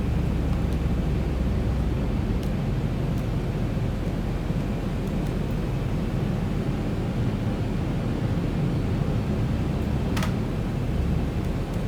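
Steady low cockpit noise of an airliner on approach, the airflow and engines heard from inside the flight deck, with a brief click about ten seconds in.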